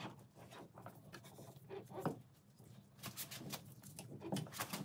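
Faint rubbing and a few light knocks as a MerCruiser Alpha One outdrive is handled by gloved hands, its yoke shaft being guided through the gimbal into the bell housing.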